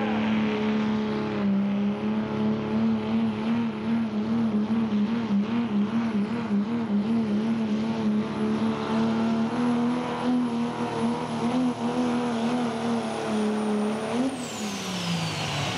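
Dodge Ram's Cummins turbodiesel at full throttle pulling a weight sled, its steady engine note wavering under load with a high whistle above it. A little before the end the throttle closes and both the engine note and the whistle fall away.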